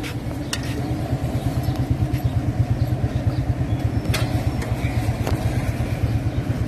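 A small engine running steadily with a fast, even throbbing. A few light clicks sound over it, about half a second in and twice more later.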